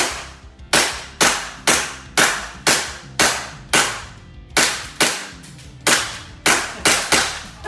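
A BB gun fired in quick succession: about fourteen sharp shots at roughly two a second, each with a short ringing tail.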